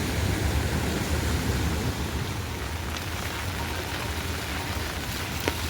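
Heavy rain falling steadily, with a low rumble underneath and a few sharp drip-like taps, the clearest one near the end.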